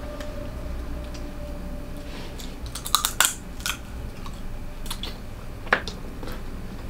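Cooked blue crab being picked and eaten by hand: sharp cracks and snaps of crab shell, mixed with chewing and wet mouth sounds. A quick run of cracks comes about three seconds in, and a single loud snap just before six seconds.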